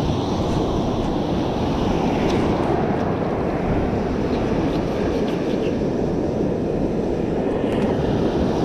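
Strong storm wind buffeting the microphone as a steady low rumble, with surf washing up the beach underneath.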